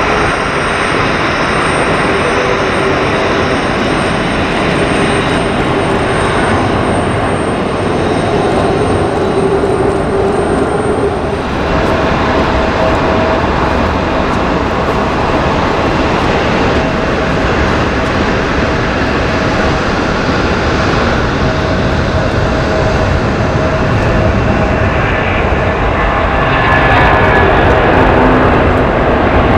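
Airliner jet engines running steadily: first a taxiing Boeing 737 with a high whine over its roar, then, after a cut about twelve seconds in, an Airbus A330-300's Rolls-Royce Trent 700 turbofans at takeoff power on the runway, growing louder near the end.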